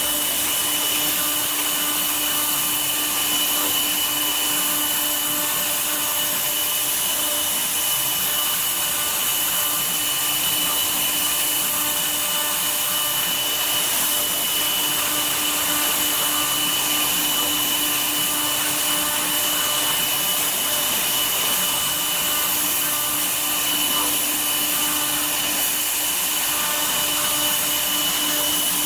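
Woodworking CNC router spindle running steadily as it cuts wood: a constant high whine over a rushing hiss.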